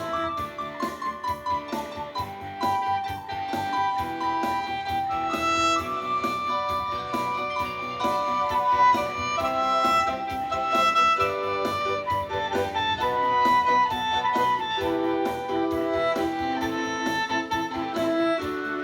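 Instrumental music played live by a small ensemble: a melody of long, held notes over a continuous accompaniment with a regular beat.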